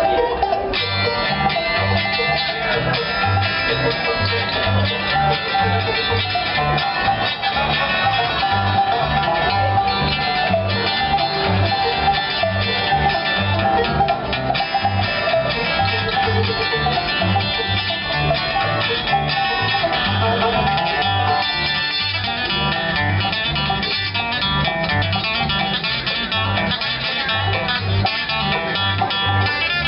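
Bluegrass band playing an instrumental tune: banjo and guitar picking over a steady, evenly pulsing bass line.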